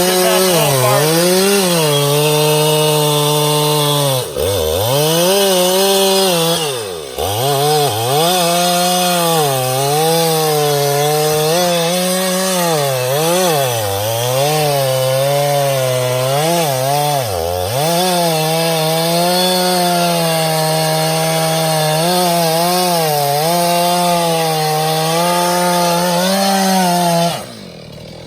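Stihl MS391 two-stroke chainsaw at full throttle, making the back cut through a 26-inch hickory trunk. The engine pitch repeatedly sags and recovers as the chain bogs under load in the wood, dipping deeply three times. About a second before the end the throttle is released and the engine note drops away.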